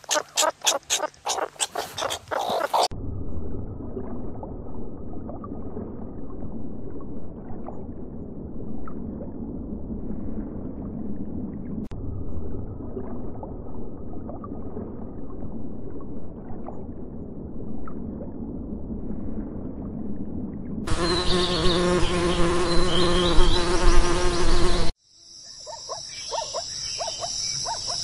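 Meerkats scratching and digging in dry, gravelly soil for the first few seconds, a quick run of scratchy clicks. Then a long stretch of underwater ambience, a low muffled rushing with faint clicks. About 21 seconds in, a loud steady buzz lasting about four seconds, cut off abruptly and followed by high, steady insect calls.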